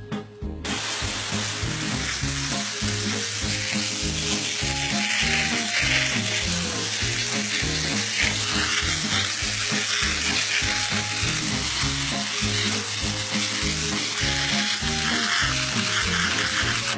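Molten aluminium sizzling as it is poured to fill a nest: a steady hiss that starts about a second in. Background music with a bass line plays underneath.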